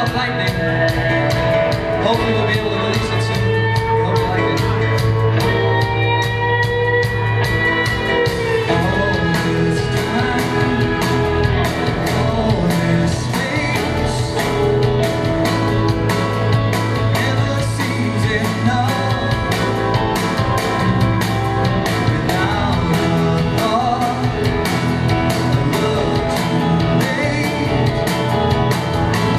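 Rock band playing live on a stage: electric guitars, drums and keyboard with a singer, a long held note standing out about six to eight seconds in.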